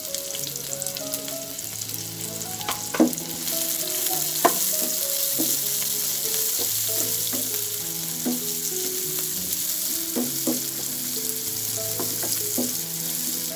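Sliced onion, ginger and green chillies sizzling in hot oil in a frying pan, stirred with a spatula that knocks and scrapes against the pan a few times. The sizzle grows louder about three and a half seconds in, as the stirring spreads the vegetables through the oil.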